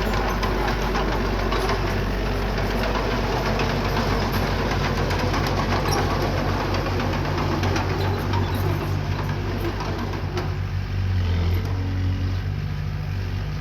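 Diesel engine of a small bulldozer or dump truck running steadily, with rattling and clanking that thins out about ten seconds in.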